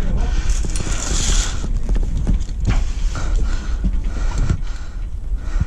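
Footsteps and rattling gear of a moving airsoft player: irregular thuds and clatter over a steady low rumble of wind and handling noise on the body-worn camera, with a short hiss about a second in.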